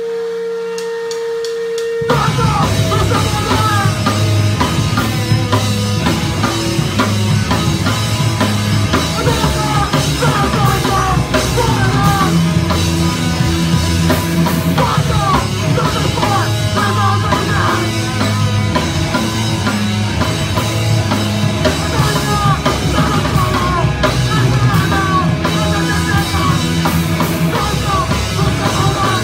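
Rock band playing live on drums and electric guitars. A single held tone sounds for about the first two seconds, then the full band crashes in and plays loud and steady.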